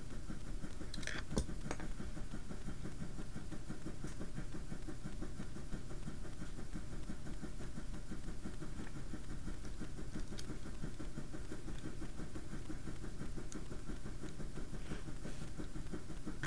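Steady low background hum, with a few faint clicks from handling a small plastic toy figure and its stickers, the clearest about a second in.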